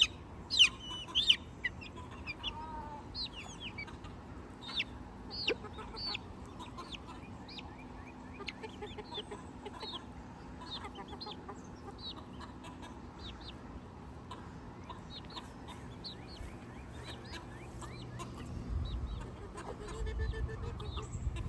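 A flock of backyard chickens clucking and calling while they feed, with many short, scattered calls and a few louder ones in the first second. A low rumble comes in near the end.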